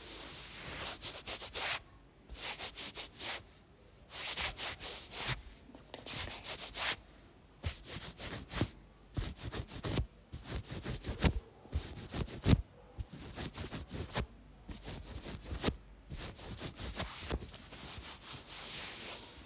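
Fingertips rubbing and scratching through hair on the scalp during a head massage, in quick repeated strokes with a few short pauses.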